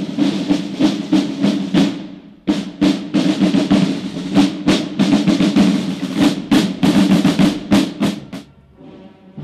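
Marching drum corps playing rope-tensioned field drums: a cadence of rolls and accented strokes, with a brief break about two seconds in, stopping about eight and a half seconds in.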